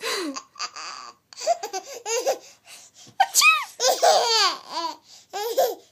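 A seven-month-old baby laughing in several separate bursts of high-pitched giggles, with short gaps between them.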